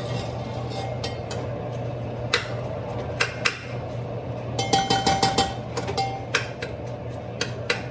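A metal utensil clinks and scrapes against a cooking pot as sliced onions are stirred in hot oil. About five seconds in there is a quick run of ringing taps. A steady low hum runs underneath.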